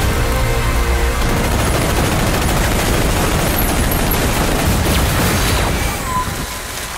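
Action film trailer soundtrack: a musical build gives way, about a second in, to a long dense burst of heavy machine-gun fire over deep booms. It drops in level near the end.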